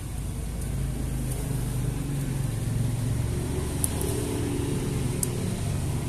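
A motor vehicle engine running steadily in the background as a low hum, with a few faint sharp ticks about four and five seconds in.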